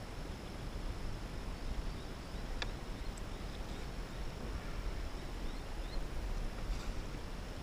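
Steady outdoor noise on open water, with a low rumble of wind on the microphone. There is a single sharp click about two and a half seconds in, and a few faint high chirps.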